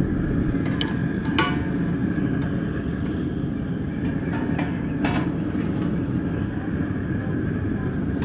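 Propane crawfish burner running with a steady low roar under a pot of boiling water, with a few sharp knocks about one and five seconds in.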